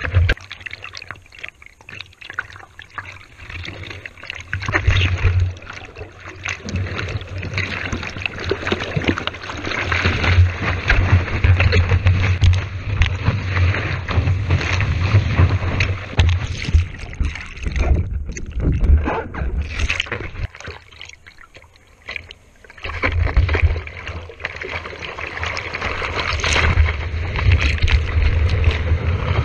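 Rushing whitewater and spray against a surfboard-mounted GoPro as the board rides a wave, with wind buffeting the microphone. The rush drops away a couple of times, briefly around two seconds in and again a little after twenty seconds, then comes back loud.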